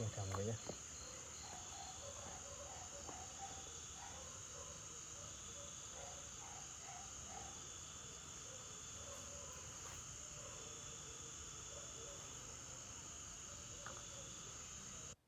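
Crickets chirring at night: a steady, high continuous trill, with softer, lower repeated calls among it. The sound cuts off abruptly just before the end.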